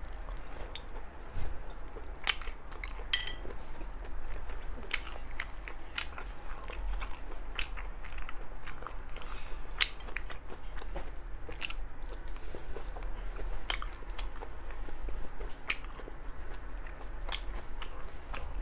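Close-miked chewing and biting of seafood, with many short sharp clicks and small crunches, and a brief ringing clink about three seconds in.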